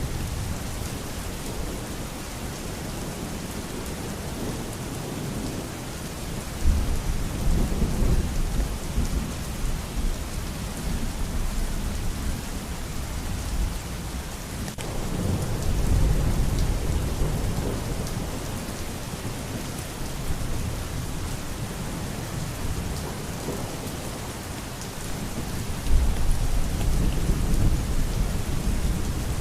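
Steady heavy rain with rolling thunder: low rumbles swell up three times, about a quarter of the way in, around the middle, and near the end.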